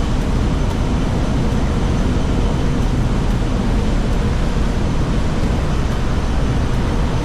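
Fast passenger ferry under way at speed: a loud, steady rumbling rush.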